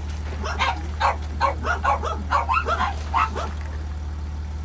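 Crated dogs barking: a quick run of about a dozen short barks, roughly three a second, that stops a little past the middle.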